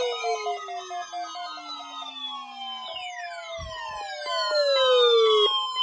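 Several NOAA weather radios sounding their alert alarms together during the weekly test, in response to the broadcast warning tone. Overlapping siren-like sweeps fall in pitch, with beeping tones around them, and a low thud comes about three and a half seconds in.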